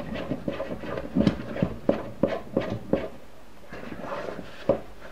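Wooden spoon stirring a thick semolina dough in a saucepan, each stroke a short knock against the pot, about three a second; the stirring pauses about three seconds in, with one more knock near the end.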